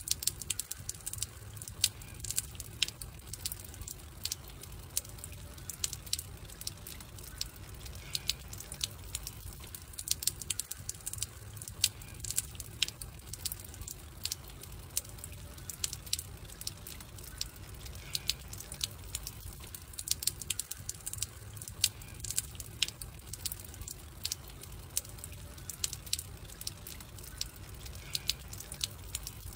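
Wood fire crackling, with irregular sharp pops over a low steady rumble; the same stretch of crackle repeats about every ten seconds.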